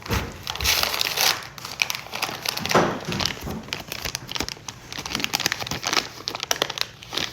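Packaging of a mystery keychain blind bag being crinkled and torn open by hand: dense crackling, with louder bursts about half a second in and again near three seconds in.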